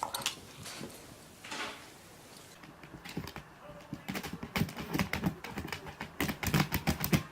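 A rapid, irregular run of sharp clicks and taps, starting about three seconds in and growing denser toward the end.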